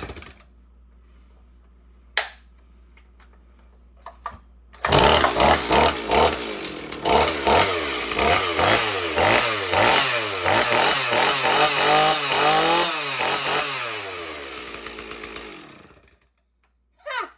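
Stihl 026 two-stroke chainsaw catching suddenly about five seconds in, then revved up and down over and over. Near the end it winds down and stops, the kill switch shutting it off.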